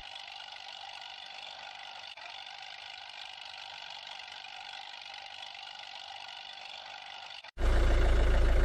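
A faint, steady mechanical hum with a thin, high sound and no low rumble. About seven and a half seconds in, it cuts suddenly to a loud, deep vehicle engine idling.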